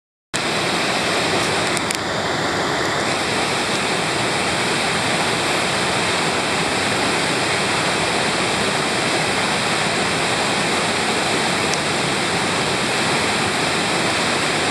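White water pouring steadily over a broken river dam into a foaming rapid, a loud even rush that cuts in abruptly just after the start.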